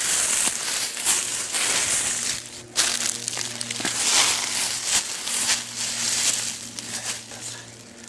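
Dry leaves and twigs crunching and rustling underfoot on a forest floor: a run of uneven crunching footsteps.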